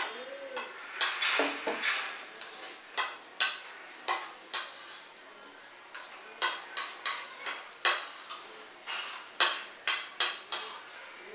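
Metal spoon clinking and scraping against a ceramic plate in irregular strokes as the last of the food is scooped up.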